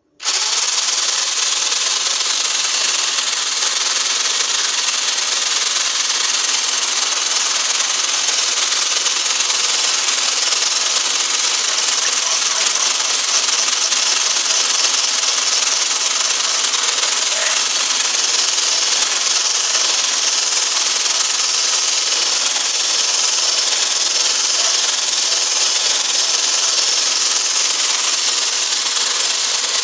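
Stick blender with a whisk attachment running at a steady speed, loud, switching on abruptly at the start, whipping egg whites in a stainless steel bowl up to a foam.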